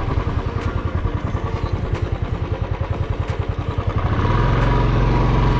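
Royal Enfield Bullet single-cylinder engine running with a fast, even thump. About four seconds in it turns into a steadier, louder run as the revs rise.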